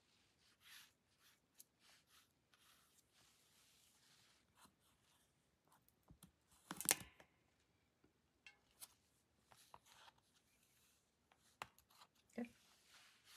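Mostly near silence with faint soft swishes of a wet brush on watercolour paper, a single sharp knock about seven seconds in, and a few light clicks and taps near the end as hands handle the painting board.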